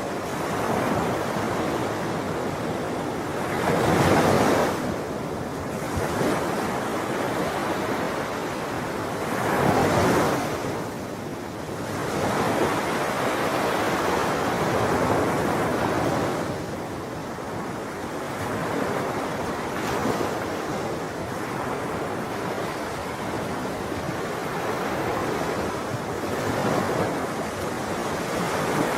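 Sea waves breaking and washing on a shore, a steady wash of surf with louder swells rolling in every several seconds, the biggest about four and ten seconds in.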